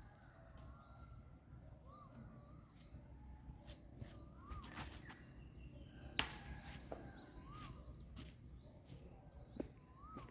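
Quiet outdoor ambience: a bird repeats a short rising-and-falling call every second or two over a steady high hiss, with scattered sharp clicks, the loudest about six seconds in.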